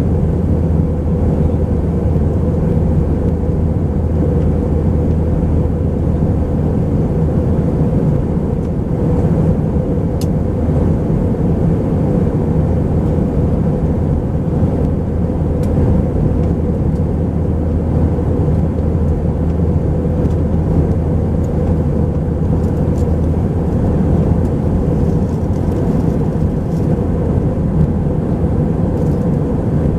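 Steady cabin drone of an Airbus A319-131 in flight, heard from inside the cabin: the hum of its IAE V2500 engines mixed with rushing airflow, holding level with no change in pitch.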